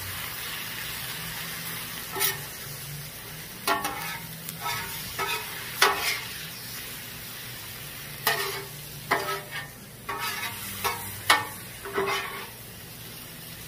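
Green beans sizzling in soy sauce on a Blackstone flat-top griddle, with a metal spatula repeatedly scraping and clacking on the steel plate as they are stirred and tossed.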